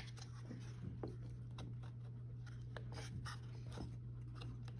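Faint rubbing and small taps of wooden birdhouse pieces being handled and slid into line by hand, over a steady low hum.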